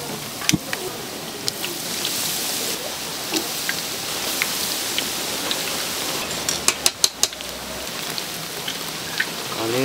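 Battered pieces of handmade fried food deep-frying in hot oil: a steady, crackling sizzle. A few sharp clicks sound over it, with a quick run of several about two-thirds of the way through.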